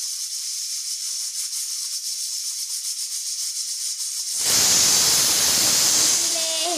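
A pot of dal (lentils) boiling, a steady high hiss of steam. About four and a half seconds in it swells into a louder, fuller rush.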